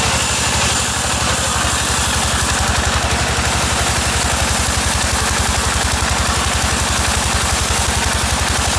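Sawmill machinery's engine running steadily, with a fast, regular low throb and a hiss over it.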